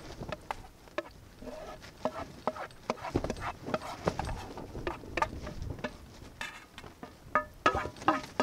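A wooden spoon scraping and knocking food out of a metal frying pan into a metal pot, in irregular scrapes and taps. Near the end come several sharper taps on the metal that ring briefly.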